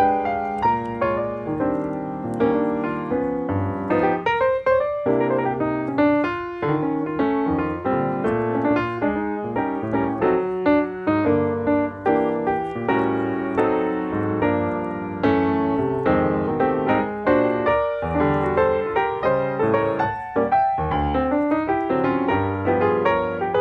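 Background piano music: a continuous stream of notes and chords.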